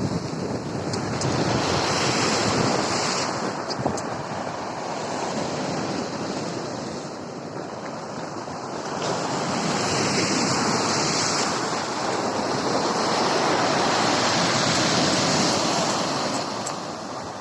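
Sea surf washing on the shore, the rush of the waves swelling and falling back every few seconds, with wind blowing on the microphone.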